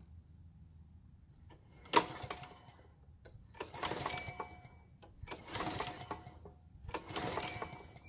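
Recoil starter rope on a John Deere walk-behind mower pulled four times, each pull a rasping whirr of under a second, the first the loudest. The engine turns over but never fires or even tries to catch: a no-start that the owner traces to fuel not getting through the carburettor.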